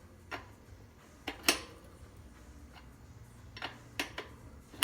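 Wrench clinking against a BMX front wheel's axle nuts as they are loosened: a handful of separate sharp metallic clicks, the loudest near the end.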